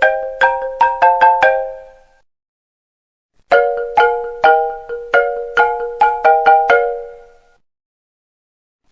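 iPhone ringtone in a marimba sound: phrases of struck notes about half a second apart, each closing with a quick run of notes. One phrase ends about a second and a half in, and after a pause of about a second and a half another full phrase plays, followed by another pause.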